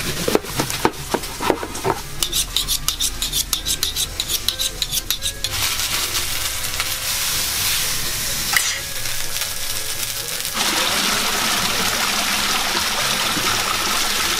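A knife cutting and chopping on a wooden board, ending in a fast, even run of strokes; then a steady sizzling hiss from the wood-fired oven and grill. About ten seconds in, this gives way to water splashing steadily from a small waterfall into a stone pool.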